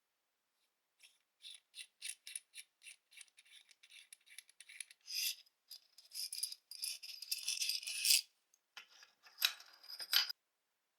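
Small parts of a lantern stand being handled: a run of light clicks, two or three a second, then rustling and scraping in two bursts.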